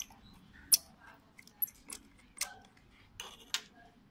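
Irregular sharp clicks and taps of a small precision screwdriver working a screw in the plastic housing of a DPVR E3 VR headset, about seven in four seconds.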